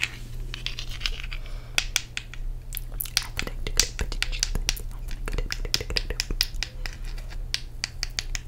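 Fingernails tapping and scratching on an ice cube held close to the microphone: quick, irregular sharp clicks, several a second, with short scratches between them.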